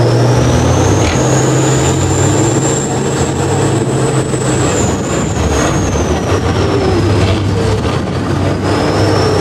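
Tatra 815 6x6 trial truck's diesel engine running under load as it climbs a steep dirt bank, its note dropping about five seconds in. A thin high whine rises and then falls over it.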